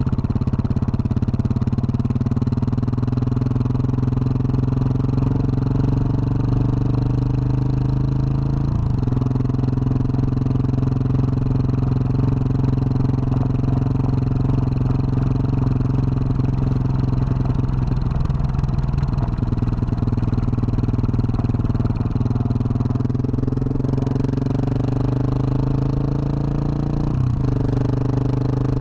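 2021 Husqvarna 701 Supermoto's single-cylinder engine running through its Wings aftermarket exhaust while the bike is ridden. The engine note dips sharply about nine seconds in, then holds steady. Near the end it climbs in revs and drops sharply again.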